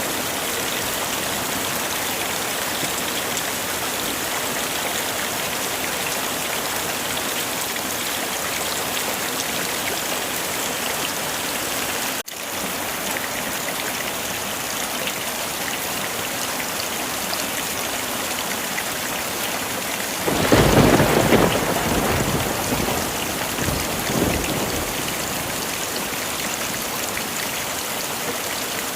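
Heavy rain falling steadily, with a rumble of thunder about twenty seconds in and a weaker rumble a few seconds after.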